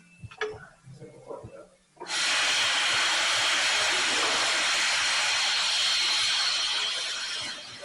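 Compressed-air tool running: a loud, steady hiss of air that starts suddenly about two seconds in, holds for about five seconds and tapers off near the end.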